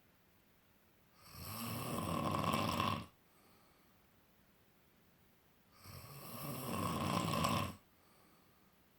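Snoring, two long snores about four and a half seconds apart. Each snore grows louder over about two seconds, then cuts off, with quiet in between.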